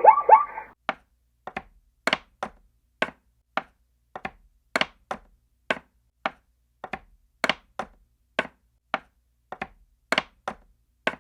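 A few short calls that fall in pitch, then a long run of sharp, separate taps or knocks, roughly two a second with uneven gaps.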